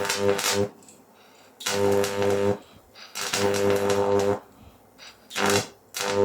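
High-voltage arc from a microwave oven transformer buzzing and hissing as it burns into a marshmallow, switched on in bursts of up to about a second, five times.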